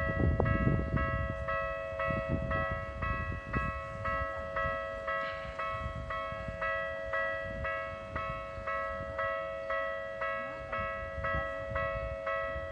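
Japanese railway level-crossing warning bell ringing: a two-tone electronic chime striking about two and a half times a second. A low rumbling noise runs under it, loudest in the first second.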